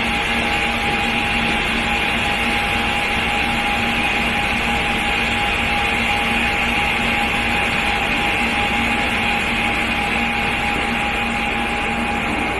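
A pyrotechnic flame unit burning with a steady, continuous rushing hiss that holds level and does not change.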